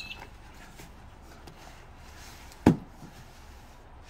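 A single sharp thump on a timber deck about two-thirds of the way in, a folding solar blanket being laid down on the boards, with faint rustling just before it.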